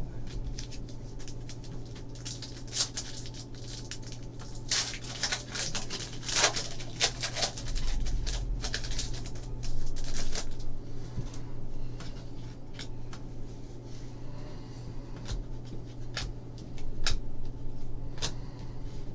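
2014 Panini Contenders football trading cards being handled and slid against one another: a run of papery rustles and small clicks, busiest about five to seven seconds in, then scattered single clicks, over a steady low hum.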